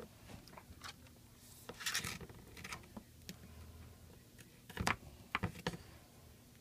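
Small handling sounds of double-sided tape being applied to an iPad 2's frame: scattered light clicks and ticks, a short rasping rustle about two seconds in, and a few sharper clicks around five seconds.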